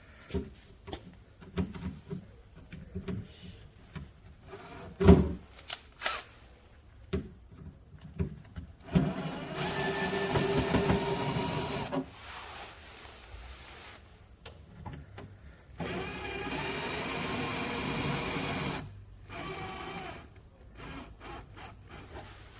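Power screwdriver running in two spells of about three seconds each, backing out the two bolts that hold a cover on the device, with clicks and knocks of parts being handled in between and one sharp knock a few seconds in.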